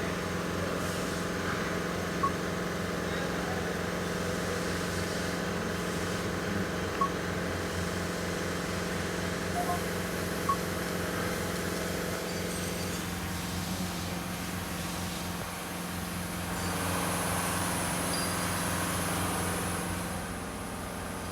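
Lexus LS460's V8 idling steadily, with a P0300 random-misfire code stored, and a few short high beeps over it.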